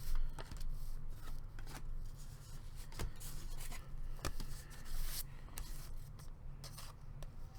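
Trading cards being handled and flipped through by hand: irregular rustles, slides and sharp clicks of card stock.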